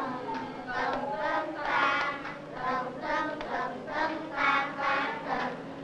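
A group of children singing together, a rhythmic chant-like song at about two syllables a second.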